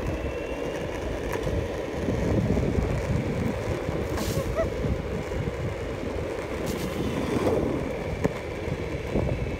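Wind buffeting a phone's microphone outdoors: a steady, fluttering low rumble.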